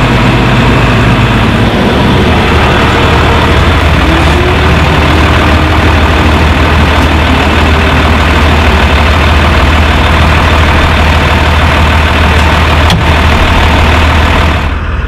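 Large farm tractor's diesel engine running at a steady idle, a constant low hum. A single click comes near the end, and the level drops shortly before the close.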